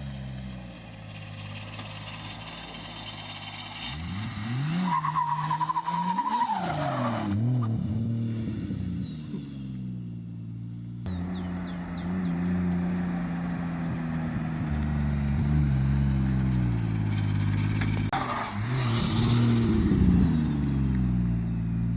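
Car engine revving hard in sharp rises and falls, with a brief tyre squeal. After an abrupt cut about halfway through, an engine idles and then revs hard again near the end.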